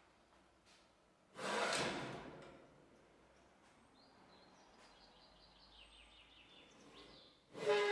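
Chain-operated sheet-metal blast gate on overhead dust-extraction ducting being pulled along its track: a loud metal slide about a second and a half in that fades over about a second, light rapid clicking from the chain, then a second loud slide with a ringing tone near the end.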